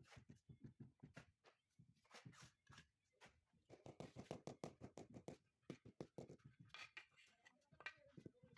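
Mallet tapping a marble strip down into its mortar bed: scattered knocks, then a quick run of taps about four seconds in, with scraping of a shovel in wet mortar in between.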